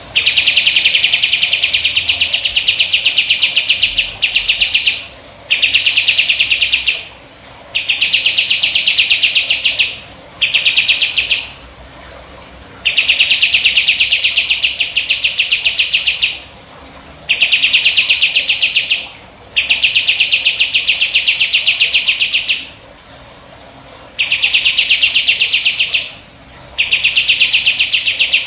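Crescent-chested babbler (burung jenggot) singing its rapid 'tembakan' trill: about ten loud bouts of fast, even pulses on a high note, each lasting one to four seconds, with short pauses between them.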